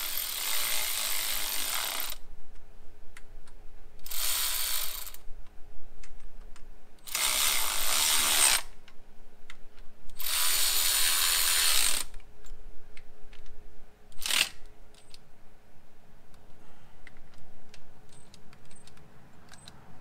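Cordless ratchet running in short bursts to run down the thermostat housing (water neck) bolts: four runs of one to two seconds with pauses between, and a brief last zip about two thirds of the way through.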